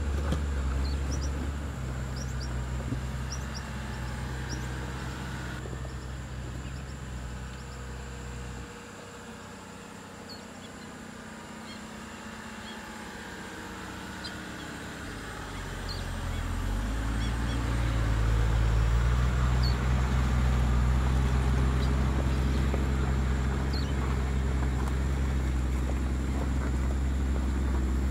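Outdoor ambience: a steady low rumble that fades away for several seconds in the middle and then swells back louder, with faint scattered bird chirps.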